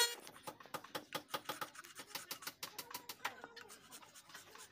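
A hand-held blade scraping and shaving along the edge of a wooden board in quick short strokes, several a second.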